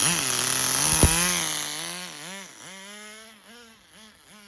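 Nitro RC car's small glow engine running, its pitch wavering in quick surges; about two seconds in it drops quieter and keeps surging unevenly at a lower speed. A sharp click sounds about a second in. The idle is set too low, according to the owner.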